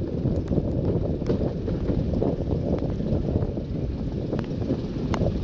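First-generation Class 121 'bubble car' diesel multiple unit running slowly, heard from an open window: a steady low rumble of the underfloor diesel engine and wheels, with sharp irregular clicks as the wheels cross rail joints and pointwork, and wind buffeting the microphone.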